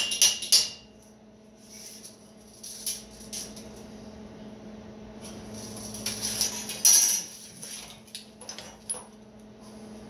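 Steel frame pieces and tools being handled and positioned on a workbench: light metal clinks, taps and rattles, with a cluster of sharp clicks at the start and a louder spell of rattling about seven seconds in, over a steady low hum.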